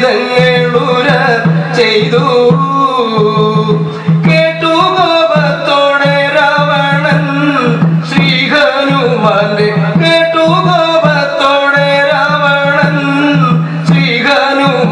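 Devotional Malayalam song: a voice singing melodic phrases over a steady low drone, with occasional drum strikes. The phrases break off about 4 and 8 seconds in and again near the end.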